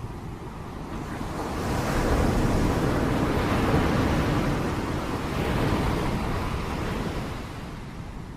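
Steady rush of rain that swells louder about a second in and eases off again near the end.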